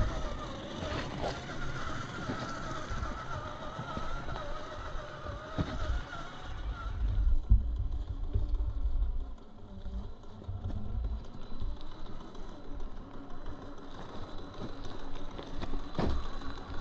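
Electric motor and gear drivetrain of a Gmade GS02F Buffalo RC crawler whining with a wavering pitch as it drives, stopping about seven seconds in. Low rumbling thumps run through much of it.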